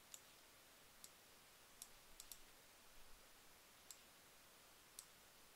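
Faint, scattered clicks of a computer mouse, about eight spaced irregularly over a few seconds against near silence.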